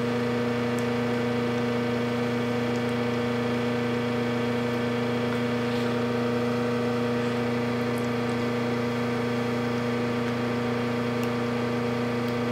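Steady low electrical hum, even in level, with a few faint clicks now and then.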